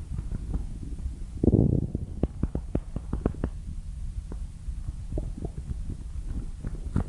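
Blue fox's stomach gurgling: a loud rumble about one and a half seconds in, then a quick run of short pops and gurgles, with more scattered gurgles near the end.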